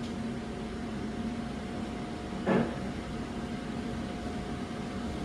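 Steady hum inside a lift car, with a thin steady tone, broken once about two and a half seconds in by a short sound.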